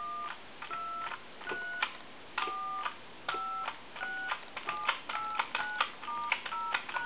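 Touch-tone keypad of a Mickey Mouse telephone dialing out: about a dozen short DTMF beeps, each a pair of steady notes starting with a faint key click, at an uneven hand-pressed pace. The repaired phone's tone dialing works.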